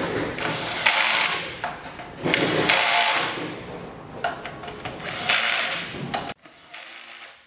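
Cordless drill running in three bursts of about a second and a half each, with short pauses between, then stopping.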